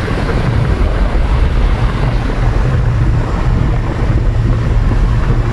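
Steady road and engine noise inside a moving vehicle's cabin at highway speed, mostly a deep, even rumble.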